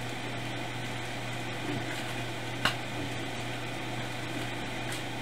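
Steady hiss with a low constant hum, broken by a single short click a little past halfway.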